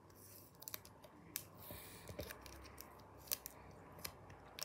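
Sticky tape being peeled off a clear plastic card top loader: faint, irregular small clicks and crackles with a soft rustle in the middle.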